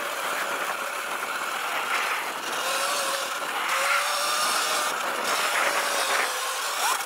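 Sur-Ron Light Bee electric dirt bike being ridden, its KO Moto Factory Spec motor whining and wavering up and down in pitch as the throttle is worked, over a steady rushing noise.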